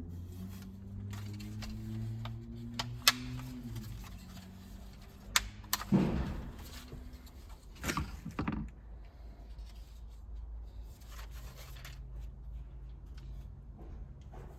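Plastic console and switch parts being handled: a few sharp clicks about three and five seconds in, and duller knocks around six and eight seconds, over a low steady hum.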